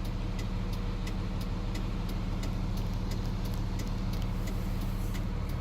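A vehicle engine idling steadily, with a faint regular ticking over it.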